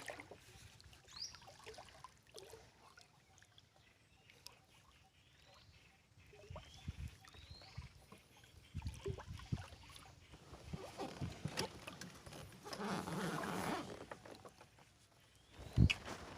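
Knocks and thuds of a small fishing boat and gear being handled on the water, with a louder rush of noise about three-quarters of the way through. A bird gives short rising chirps now and then.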